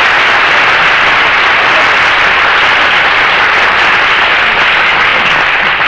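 Studio audience applauding steadily after a song, an even dense clapping heard through an old radio recording.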